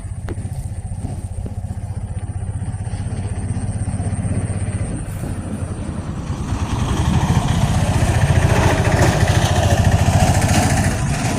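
A small engine running with a fast, even beat, growing louder from about halfway through and easing slightly near the end.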